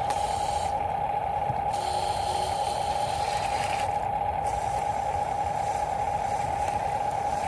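Small electric motor of an RC construction model running with a steady whine, over a rushing noise.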